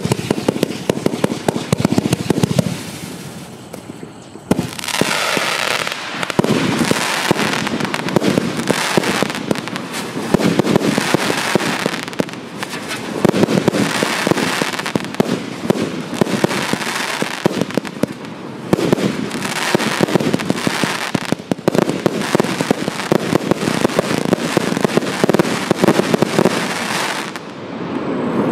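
Wolff 'The Throne' 346-shot double fan-shaped firework compound firing in rapid volleys: a dense stream of launch shots and bursting stars. It comes in waves, eases off about three to four seconds in, builds again, and dies away near the end as the cake finishes.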